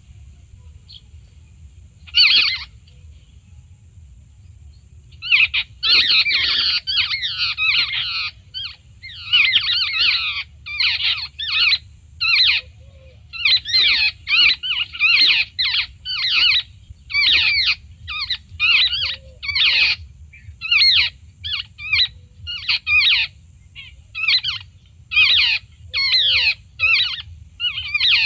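Jungle babbler (charkhi) calls: harsh, scratchy chattering bursts, one short burst about two seconds in and then a run of bursts roughly once a second from about five seconds in, the flock-contact chatter used to call the birds in.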